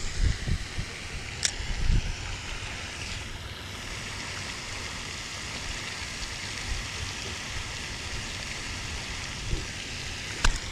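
Steady wind noise on the microphone, with low buffeting thumps in the first couple of seconds and a sharp click about a second and a half in.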